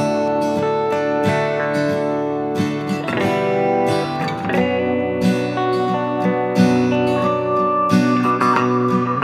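Background music led by strummed acoustic guitar with sustained chords and a steady rhythm.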